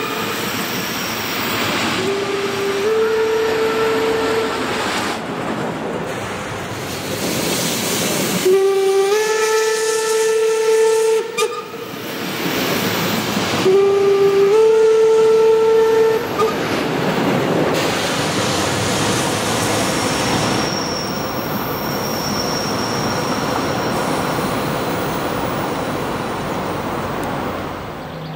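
A German steam locomotive's whistle sounds three long blasts, each starting a little low and then stepping up to a higher note, over the steady rolling noise of the train's coaches running on the rails, which fades near the end.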